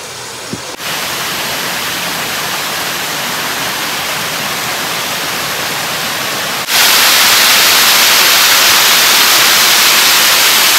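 Waterfall rushing over rock ledges: a steady, even rush of falling water that jumps suddenly much louder and brighter about seven seconds in, close beside the cascade.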